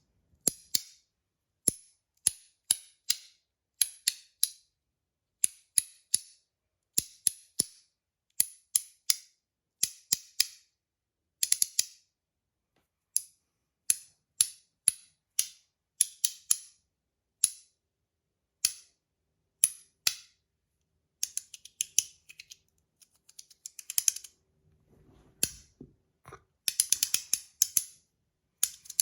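Zirconium magnetic haptic coin (ACEDC mini milk cap) being fidgeted: its halves snap together in sharp, crisp clicks, mostly in pairs about once or twice a second, with a faster flurry of clicks near the end.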